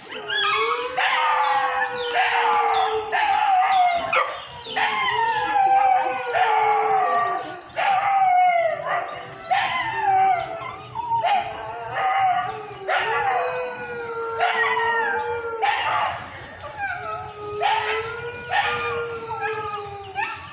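Several dogs barking over and over, about once a second, while one dog keeps up a long, wavering howl under the barks.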